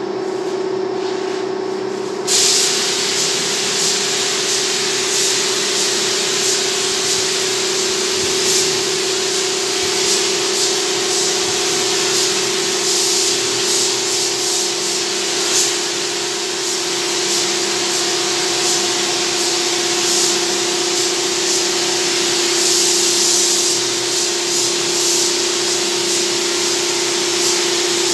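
Air spray gun with a gravity-feed cup spraying paint onto a CNC-cut MDF panel: a steady hiss of air and atomised paint that starts abruptly about two seconds in, over a constant low hum.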